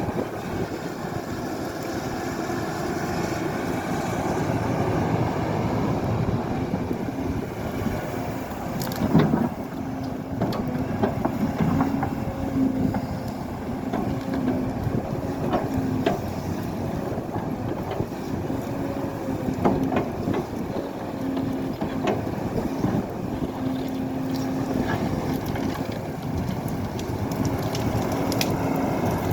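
Excavator's diesel engine running steadily with a humming note that comes and goes, and scattered knocks, the loudest about nine seconds in.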